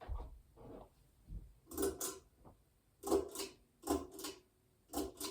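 A ceiling fan's pull-chain switch being worked: four pulls, each a pair of sharp clicks about a quarter-second apart, as the fan is stepped through its speed settings.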